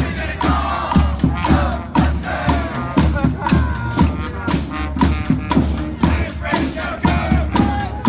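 Community street band of horns and drums playing, with a steady drum beat about twice a second under the brass melody.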